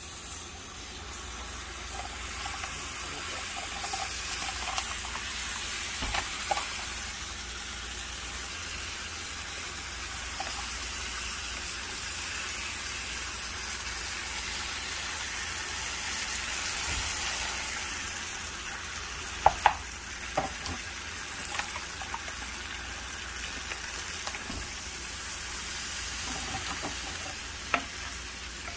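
Onions and flour sizzling steadily in hot frying oil in a pan as a roux for gravy starts to form, with a spoon stirring. A few sharp clicks sound about twenty seconds in and again near the end.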